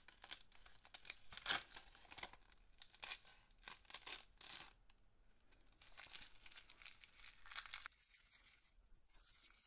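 A sheet of dry seaweed (nori) being torn and crumbled by hand: a quick run of faint, crisp crackling tears that stops near the end.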